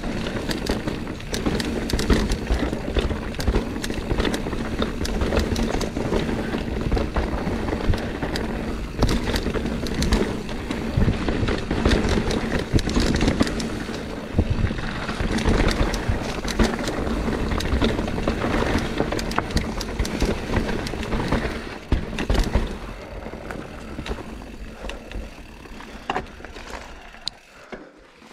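Mountain bike rolling fast along a dirt singletrack: tyre roar with a steady stream of clicks and rattles from the bike. It dies down over the last few seconds.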